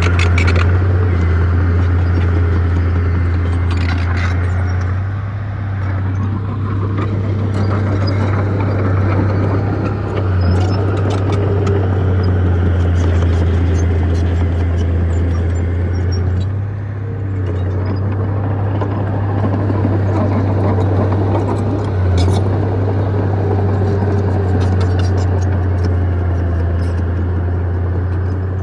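Bulldozer's diesel engine running steadily under load, easing briefly a few times, with scattered clanks and rattles from the machine and the dirt it pushes.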